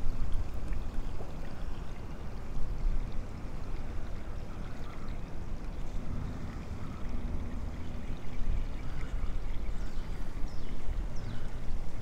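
Creek water swishing and trickling around a wading angler's legs: a steady rushing noise with a low rumble.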